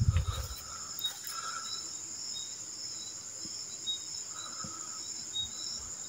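Crickets chirring steadily in the dark, a high continuous trill with shorter chirps repeating over it every half second or so. A brief low thump sounds right at the start.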